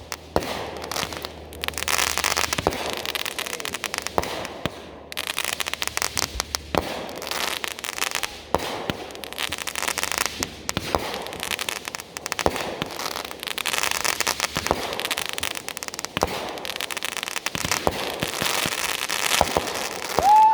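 Consumer fireworks going off: a dense, unbroken string of crackles and sharp pops.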